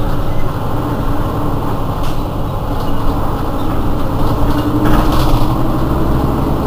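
Mercedes-Benz Citaro city bus engine idling with a steady low rumble. A brief hiss comes about five seconds in.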